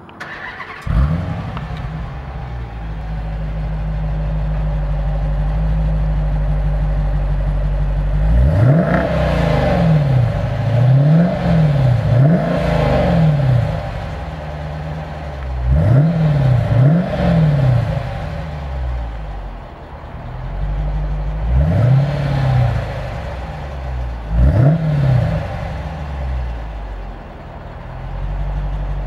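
2012 Dodge Challenger R/T's 5.7-litre HEMI V8 through its stock exhaust, starting up about a second in and settling to a steady idle. It is then revved in four groups of quick throttle blips, the pitch rising and falling each time and dropping back to idle in between.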